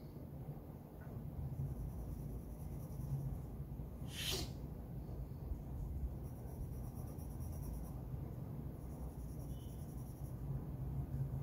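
Graphite pencil scratching lightly on drawing paper as a portrait is shaded, over a steady low hum. About four seconds in there is a brief sharp hiss.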